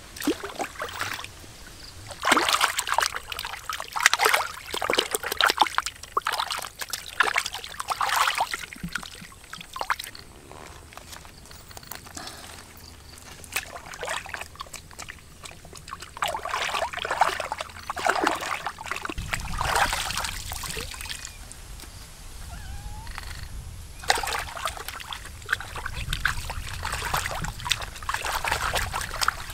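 Hands sloshing and splashing in shallow pond water, washing food, in three bouts of several seconds each with quieter gaps between.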